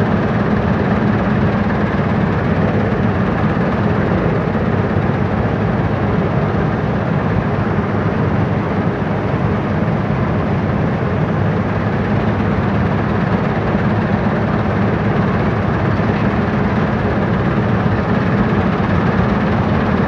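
Dashmesh 9100 combine harvester's diesel engine and machinery running steadily, a loud, even drone heard from the open driver's cab.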